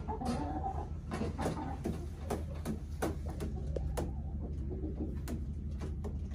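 Chickens clucking softly, with scattered sharp clicks and rustles throughout, over a low steady hum.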